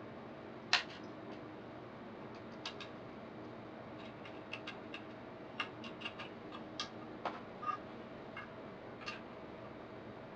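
Light, irregular clicks and taps of small hard parts being handled while a laptop SSD is fitted into its mounting with screws, the sharpest click about a second in, over a steady faint background hum.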